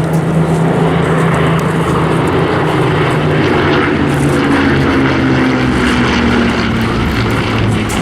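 Bristol Blenheim and Spitfires flying past in formation, their piston engines droning loudly; the engine note drops in pitch as they go by, from about the middle onward.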